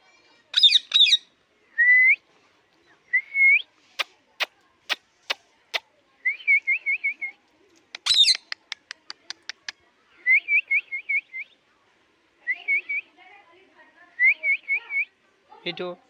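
Alexandrine parakeet calling: a few loud, harsh squawks, with rising whistled notes and quick runs of four or five chirps between them. Two runs of sharp clicks come a few seconds in and after the second squawk.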